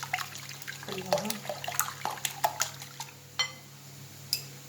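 Kitchen bowl and utensil handling: a run of quick taps and wet clicks, then two short ringing clinks of glass or metal near the end.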